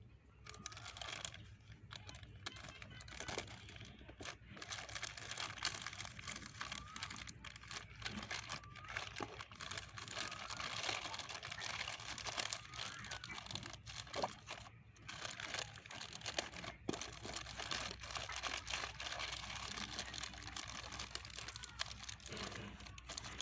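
Plastic packaging crinkling and rustling as it is handled, with many small crackles and clicks throughout.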